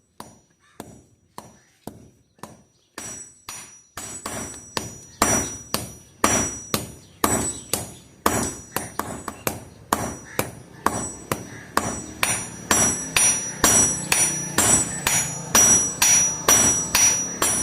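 Hand hammer blows on steel on an anvil, forging: a steady run of sharp strikes, sparse at first and then about three a second and louder from a few seconds in, each with a high metallic ring.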